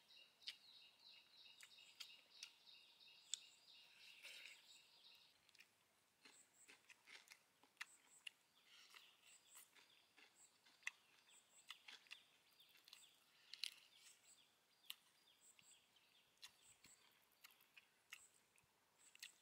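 Faint close-up eating sounds: roasted duck meat being pulled off the bone by hand and chewed, heard as many short clicks and smacks. A high, rapid chirping runs in the background for about the first five seconds, with scattered high chirps later on.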